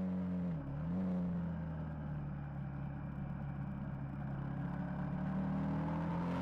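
KTM 990 Super Duke's V-twin engine running at speed on track, heard from the bike itself. Its note dips briefly about half a second in, sinks slowly over the next few seconds, then climbs again near the end.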